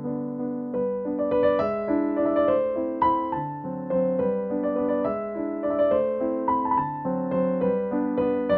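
Background music: a melody played on a keyboard, notes changing every fraction of a second.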